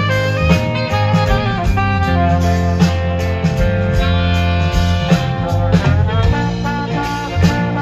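Live soul-funk band playing: trumpet and saxophone over electric guitars, bass and drums, with a steady beat.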